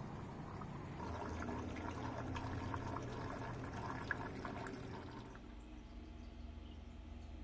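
Water trickling and splashing into a small pond, a busy run of small irregular drips and splashes that fades out about five seconds in.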